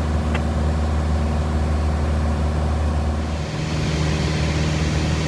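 Light aircraft's engine and propeller droning steadily in the cockpit. The tone of the drone shifts about three and a half seconds in.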